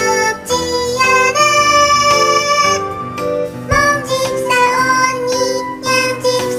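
Background music: a melody with instruments playing throughout.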